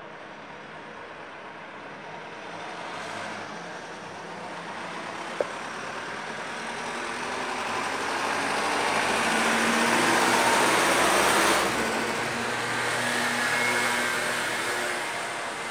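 Small box truck driving past on the street below. Its engine and tyres grow louder, peak about ten seconds in, then fade away.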